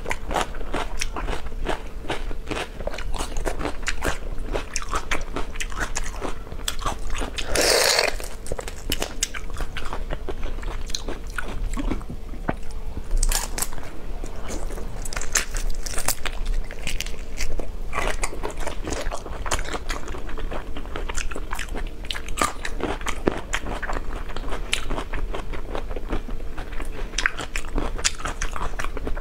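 Close-miked eating of whole raw marinated prawns: wet sucking of the prawn meat, crunching of the shells and chewing, as a dense run of sharp clicks and crackles, with one longer, louder burst about eight seconds in.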